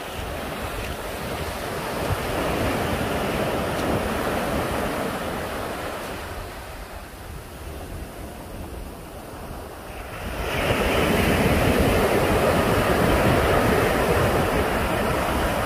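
Ocean surf breaking and washing up a beach, with wind rumbling on the microphone. The surf swells about two seconds in, eases off, then surges louder from about ten seconds in as a wave breaks close by.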